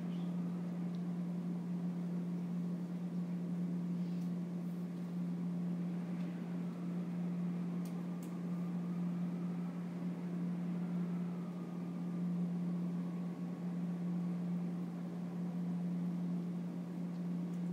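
A steady low hum with a faint hiss under it, and a couple of faint clicks around the middle.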